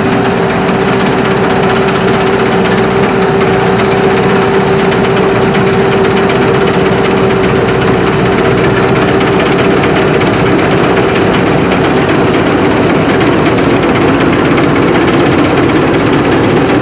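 Sakpattana SS-300 Black Bird combine harvester running steadily: a loud, dense machine din with a constant mid-pitched whine and a thin high whine over it.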